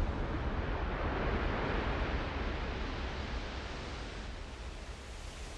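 Splash and spray of water after a van hits a river: a rushing hiss that slowly fades.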